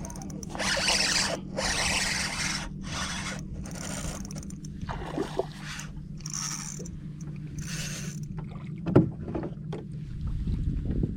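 Water swishing and splashing in a series of short, uneven strokes over a steady low hum, with one sharp knock about nine seconds in.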